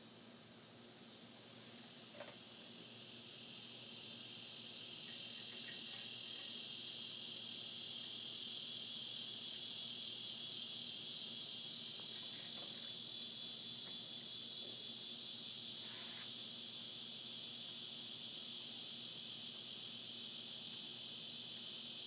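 Chorus of cicadas: a dense, high, steady buzz that builds up over the first several seconds and then holds at full strength. A couple of brief sharp chirps come about two seconds in.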